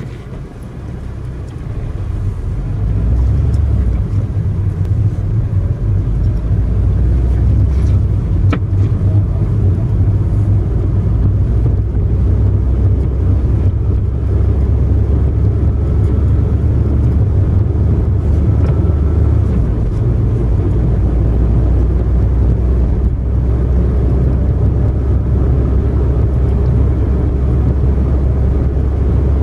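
Steady low rumble of a car's tyres and engine heard from inside the cabin while driving on an asphalt road, growing louder over the first three seconds and then holding even.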